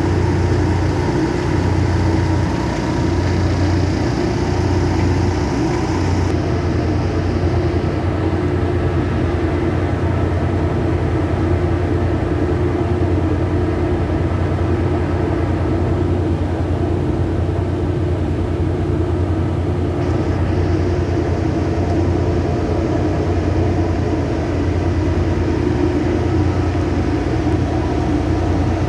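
Drilling rig's heavy engines running steadily, a constant low drone. A high hiss above it drops away about six seconds in and returns about twenty seconds in.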